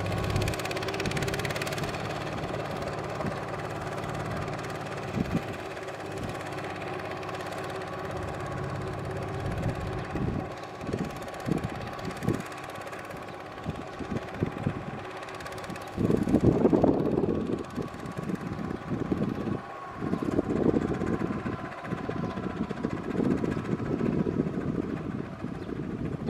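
Small Kubota RT120 tractor engine running steadily while plowing, then coming in uneven, louder surges for the last ten seconds or so.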